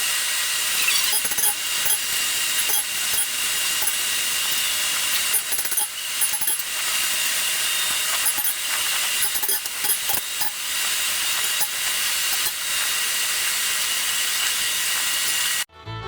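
Power grinder running and grinding the steel of a forged bowie knife blank to profile: a steady hiss with a thin, steady whine over it and occasional small clicks. It cuts off suddenly near the end.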